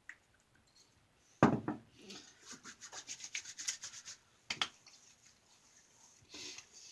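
Hands rubbing Humphreys witch hazel onto freshly shaved skin, a quick run of short strokes about five or six a second lasting a couple of seconds. A sharp knock comes just before the strokes and a smaller one after them.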